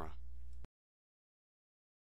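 The last word of a narrating voice with a low steady hum beneath it, then the sound cuts off abruptly about two-thirds of a second in, leaving dead silence.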